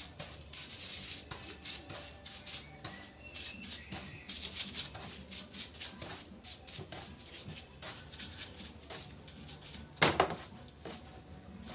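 Small metal parts and tools of a dismantled Kärcher pressure-washer pump clinking and clicking as they are handled, with one sharp, loud metallic knock about ten seconds in.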